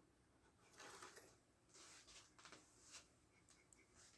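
Near silence: room tone with a few faint rustles and small ticks.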